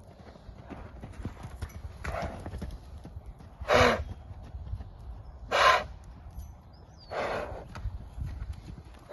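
Horses moving about with a low patter of hoofbeats and four short, loud snorts roughly every second and a half. The middle two snorts are the loudest.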